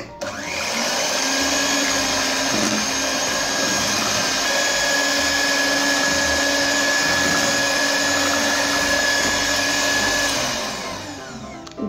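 Electric hand mixer running steadily with a motor whine, its beaters whisking eggs, oil, butter and sugar into batter in a plastic bowl. It winds down and stops about a second before the end.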